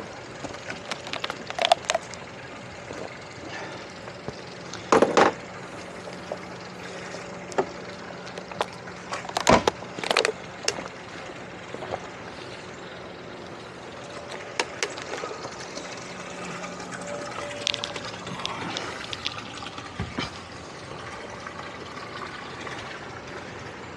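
Scattered knocks and clunks of gear being handled against the boats' fibreglass hulls and fittings, a few of them loud and sharp, over a faint steady hum that runs through the middle.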